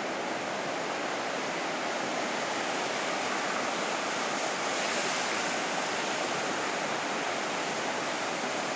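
Ocean surf breaking on a beach: a steady wash of waves, swelling a little midway.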